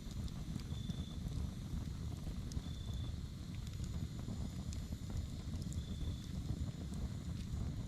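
Campfire burning, with scattered sharp crackles and pops over a steady low rumble. A short high chirp recurs several times.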